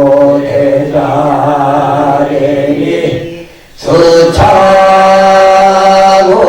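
Korean Buddhist liturgical chant, sung on long drawn-out notes. The line breaks off briefly for a breath about three and a half seconds in, then resumes.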